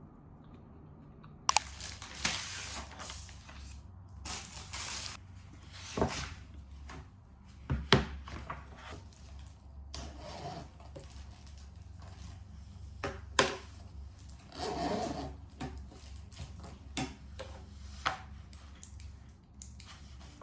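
Close-up handling sounds: irregular rubbing and scraping with several sharp knocks, over a steady low hum.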